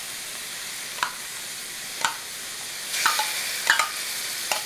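Chopped celery sizzling in olive oil in a stainless skillet, with five sharp clicks about a second apart as a metal spoon knocks chopped onion out of a measuring cup into the pan.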